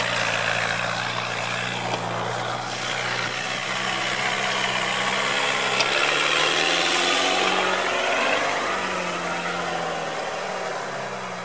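Engine of a modified UAZ off-roader on oversized tyres running at low revs as it crawls through grass. The engine note rises and falls, and it is loudest as the truck passes close about halfway through.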